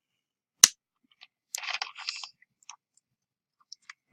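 A guitar pick prying a Galaxy S4's plastic housing apart: one sharp snap of a plastic clip releasing, then a second of scratchy crackling as the pick scrapes and the clips pull loose, and another click near the end.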